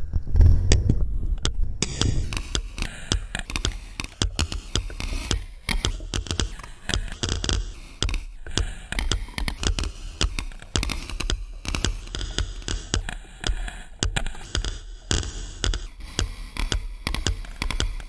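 Metronome ticks picked up by a contact microphone and fed through a Non-Linear Memory Machine Eurorack module, which plays them back as a dense, uneven stream of clicks and taps. Heavy low thumps about the first second come from the metronome being handled on the contact microphone.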